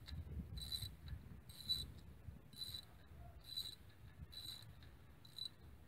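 Ratchet wrench on a spark plug socket clicking in short bursts about once a second, one burst per back-swing, as a spark plug is worked loose. The clicking stops near the end.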